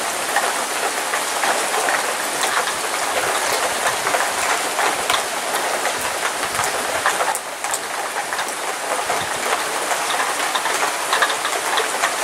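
Heavy rain falling steadily in a downpour: a dense hiss full of small, sharp drop clicks.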